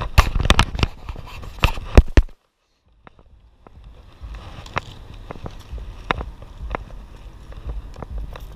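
Footsteps and rubbing and knocking on a chest-worn camera as its wearer walks on pavement, with a low street rumble underneath. The sharp knocks are loudest in the first two seconds, then the sound cuts out for about half a second. After that come softer, evenly spaced steps.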